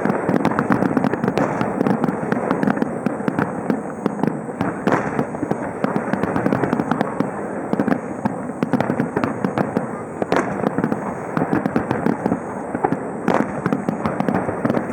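Fireworks display: a dense, continuous crackle of rapid bursts and pops, with louder single bangs standing out about five, ten and thirteen seconds in.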